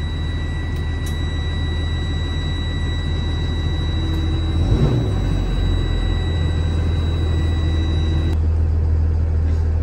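School bus engine idling steadily while the air brake system builds pressure. A steady high-pitched warning tone, the low-air buzzer, sounds over it and cuts off about eight seconds in as the pressure comes up. There is a short thump near the middle.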